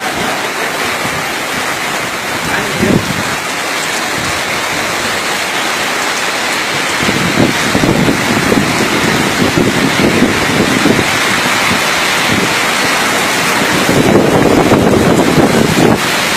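Heavy rain pouring steadily in a storm, with gusts of wind buffeting the microphone that grow stronger about seven seconds in and again near the end.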